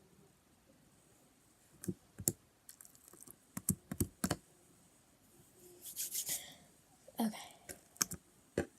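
Scattered sharp clicks and taps of objects being handled close to the microphone, with a brief rustle about six seconds in.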